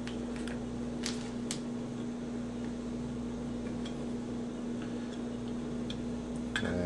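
Hands wrapping Teflon tape onto a brass pipe fitting's threads and handling the fitting: a few light clicks and rustles, the sharpest about one and one and a half seconds in. A steady low hum runs underneath.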